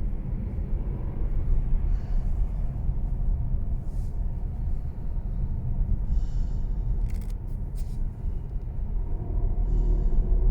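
Mercedes-Benz E-Class All-Terrain cabin while driving: steady low road and engine rumble, with a few short rattles and sharp clicks about two-thirds of the way through and brief buzzy sounds in between. These are the unwanted rattles in the car's interior that the owner is recording.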